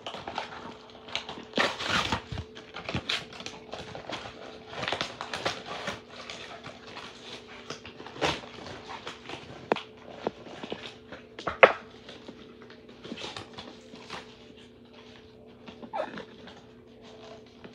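A boxed Bop It toy's cardboard and plastic packaging being handled and opened by hand: irregular rustling, scraping and sharp clicks, over a faint steady hum.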